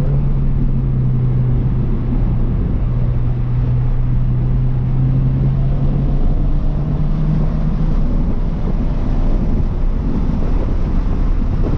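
Toyota GR86's 2.4-litre flat-four with GR exhaust running hard at speed, heard from inside the car over road and wind noise. The engine note holds steady, climbs a little partway through, then sinks under the rumble.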